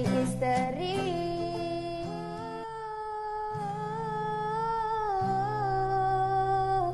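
Background music from a sung ballad: a singer holds one long note with a slight waver over soft, steady backing chords, and the music cuts off abruptly at the end.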